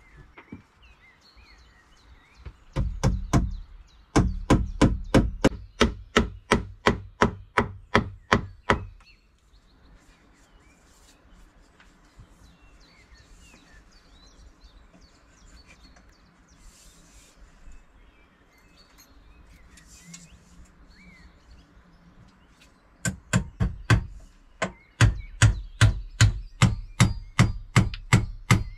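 A hammer driving nails into a wooden post, steady blows at about three a second, to fix steel molding strips. The blows come in two runs with a pause between them, and faint bird chirps can be heard during the pause.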